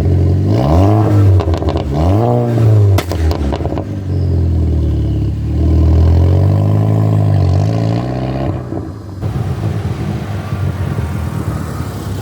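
Volkswagen MK5 GTI's turbocharged 2.0-litre four-cylinder revved through a catless 3-inch downpipe into the factory muffler with no resonator. Two quick blips rise and fall, with a few sharp clicks just after, then a longer rev, before it settles to a steady idle about three-quarters of the way through.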